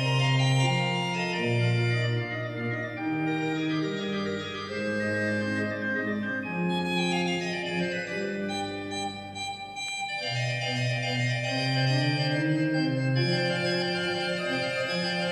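Church pipe organ playing slow, held chords that change every second or two, with a brief softer moment about ten seconds in.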